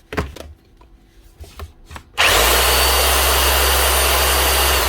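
Freshly rebuilt FF Group DH 5 MX PRO electric hammer test-run: a click and some handling, then about two seconds in the tool is switched on and runs loudly and steadily for nearly three seconds before it is released near the end and starts to wind down.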